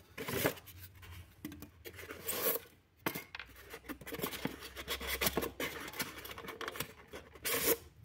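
Polystyrene foam packaging handled by hand as the lid and an inner foam block are lifted off a boxed cylinder: a run of short, irregular scratchy scrapes and rubs of foam on foam.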